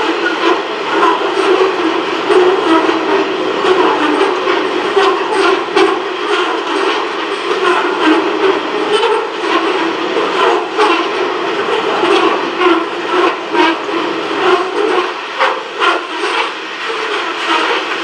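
A long container freight train's wagons rolling past steadily, wheels clicking over the rail joints, often in quick pairs, more thickly from about five seconds in.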